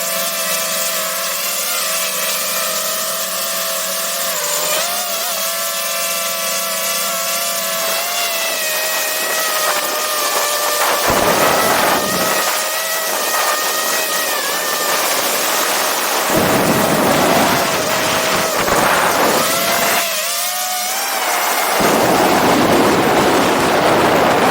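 DJI FPV drone's motors and propellers whining, the pitch shifting a little with throttle, heard close up from a camera on the drone. From about eleven seconds in, bursts of wind rush over the microphone during fast flight, heaviest near the end.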